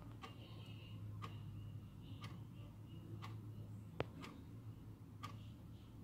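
Analog wall clock ticking faintly, about once a second, over a low steady hum. A single sharper click comes about four seconds in.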